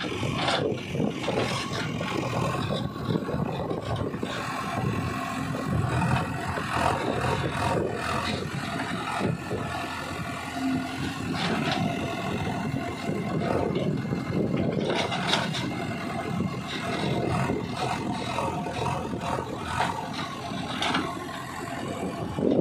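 JCB 3DX backhoe loader digging with its rear backhoe: the diesel engine runs under hydraulic load while the bucket scrapes and crunches through dry, lumpy soil, in repeated scraping strokes.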